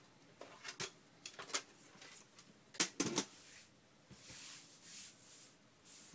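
Paper file folders being handled on a paper slicer: a series of sharp clicks and taps, the loudest about three seconds in, then soft swishes of paper sliding.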